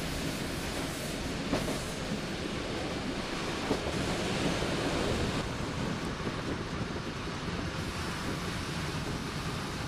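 ALn 663 diesel railcar running along the line, a steady rumble of wheels on rail and engine heard from inside the passenger compartment, with a few faint knocks.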